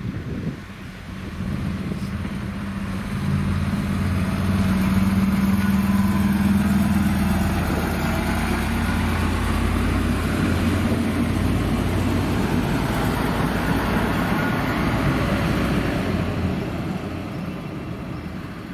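Alstom Coradia LINT 41 (DB class 648) diesel multiple unit passing close by, its diesel engine running with a steady low hum. It grows louder a few seconds in as the railcar draws alongside and eases off near the end.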